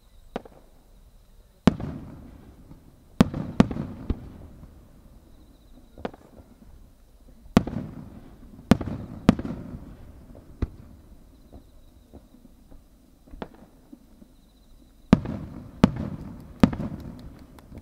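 Aerial firework shells going off one after another: about a dozen sharp booms at uneven intervals, each trailing a long rolling echo, with several coming in quick clusters near the start, in the middle and near the end.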